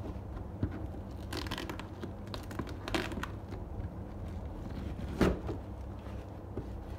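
A plastic shipping pouch being torn open by hand: bursts of ripping and crinkling, three times, the loudest a sharp rip about five seconds in, over a steady low hum.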